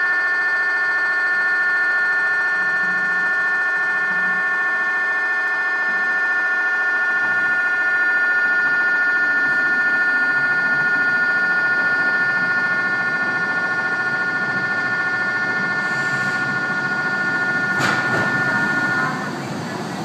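A station's train-approach alarm rings steadily at a high pitch and cuts off about a second before the end. Under it the rumble of a KiHa 125 diesel railcar arriving at the platform grows louder from about a third of the way in.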